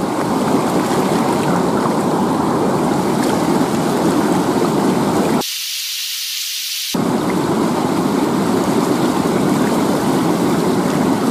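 Rushing river water running over rocks in shallow rapids, a steady noise. About halfway through, the low part drops out for about a second and a half, leaving only a thin hiss, then the rushing comes back.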